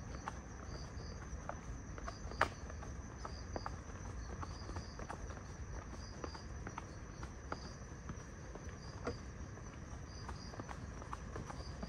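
Crickets chirping at night: a steady high trill with a repeated double chirp about once a second. Scattered footstep clicks on pavement and a sharper click about two and a half seconds in sit over a low background rumble.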